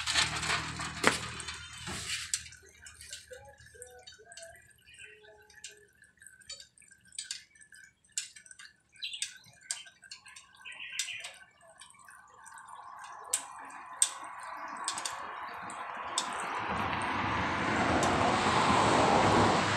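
Small metal parts clinking into a steel tray in the first two seconds, then scattered drips, then engine oil running from the auto-rickshaw's engine into a drain pan as a steady stream that grows louder from about two-thirds of the way in.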